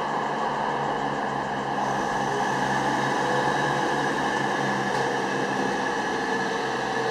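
Belgian SNCB Class 41 diesel multiple unit moving slowly past: a steady hum from its diesel engines and cooling fans, with several steady tones and no change in level.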